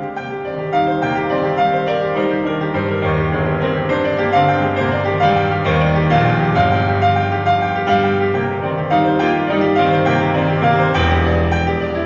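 Instrumental background music with piano notes over held low tones.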